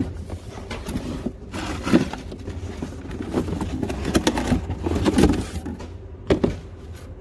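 Cardboard scraping, rustling and knocking as a shoebox is slid out of its cardboard shipping carton, with the sharpest knocks about two seconds in, between four and five seconds, and just after six seconds. Wind buffets the phone's microphone with a steady low rumble.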